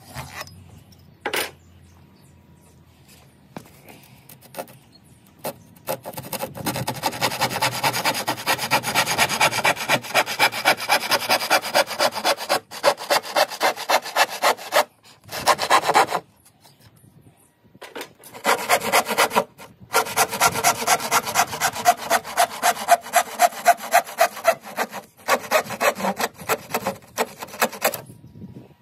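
Hand saw crosscutting a pine floorboard with quick, even back-and-forth strokes. The sawing starts about six seconds in, after a few light scratches and a click, and stops for a couple of seconds midway before going on.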